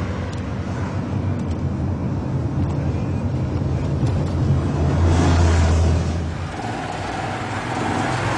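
Steady low rumble of a car's engine and road noise while driving, swelling louder about five seconds in.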